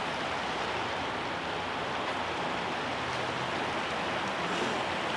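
Steady rush of a creek flowing over rocks, an even noise with no breaks.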